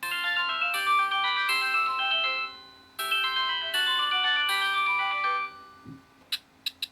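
Sony Ericsson W800i built-in polyphonic ringtone playing a synthesized melody: one phrase played twice, then fading away. Near the end a different tone of sharp percussive clicks begins.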